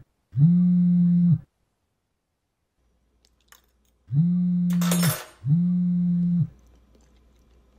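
Smartphone vibrating on a wooden table with an incoming call: one buzz of about a second, a pause of nearly three seconds, then two more buzzes in a row. A brief noisy clatter sounds about five seconds in, over the first buzz of the pair.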